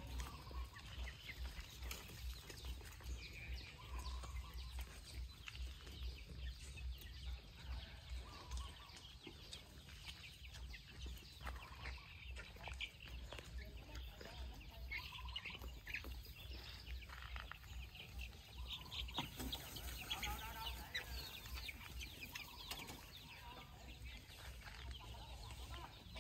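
Free-range chickens clucking and calling faintly in scattered bursts, busiest about three quarters of the way through, over a low, uneven thudding.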